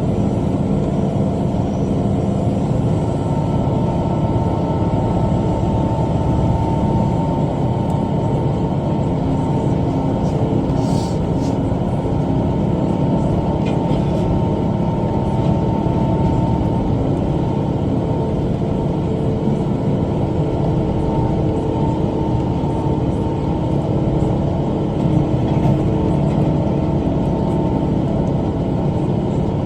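A Kubota M5 tractor's diesel engine runs steadily under load while driving a rotary cutter (bush hog) through brush. A steady whine from the mower drive comes in about three seconds in.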